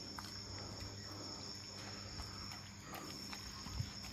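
Crickets chirring in a steady, continuous high-pitched trill, faint over a low hiss, with a few soft clicks scattered through it.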